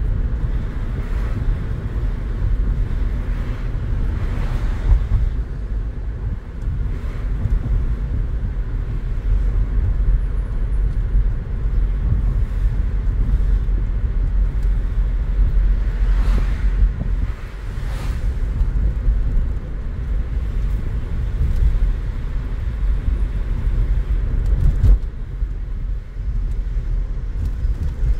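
Road and engine noise heard inside a moving car's cabin: a steady low rumble, with a few brief louder moments.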